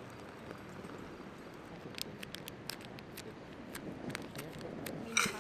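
Zip-top plastic food bag being handled and pressed shut: small sharp clicks from its zipper seal, then a louder, brief crinkle of the plastic near the end.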